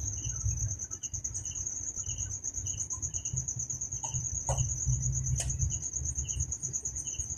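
Crickets chirping: a steady, high, pulsing trill with a lower chirp repeating about twice a second, over a low hum. A few faint clicks in the middle.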